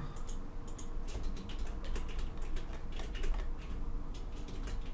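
Computer keyboard typing: irregular key clicks tapping away over a low steady hum.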